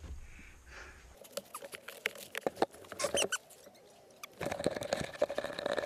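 Close crunching of snow and rustling of gear, heard as two spells of quick irregular crackles. The second spell starts a little over four seconds in.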